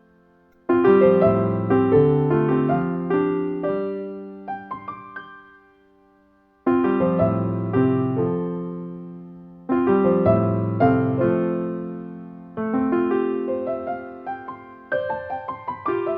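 Background music: solo piano playing gentle phrases of struck notes that ring and fade, with brief pauses between phrases.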